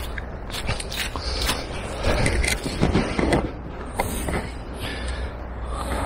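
Handling noise from a small mirrorless camera held in gloved hands: scattered clicks and rustling, busiest in the middle, over a low steady rumble.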